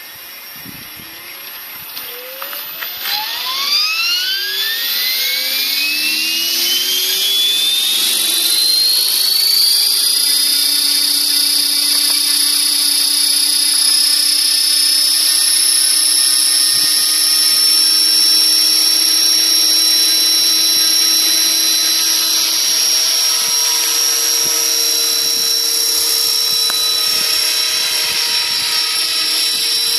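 Radio-controlled model helicopter with a Hughes 500 police scale body spooling up: a high whine that rises steadily in pitch over about the first ten seconds, then holds at a steady high pitch as the rotor reaches flying speed and the model lifts off.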